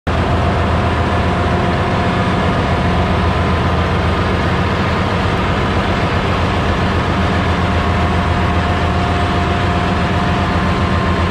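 Steady, loud machinery din of a ship's engine room: running engines give a deep hum, with a couple of steady whining tones above it.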